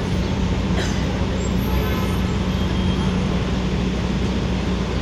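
Steady low rumble of background noise with a constant low hum, like traffic or an engine running, unchanging throughout.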